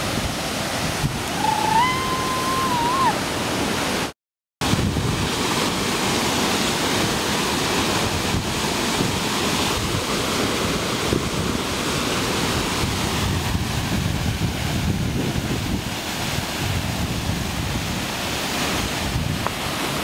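Steady rush of a tall waterfall pouring into a pool. The sound cuts out completely for about half a second around four seconds in.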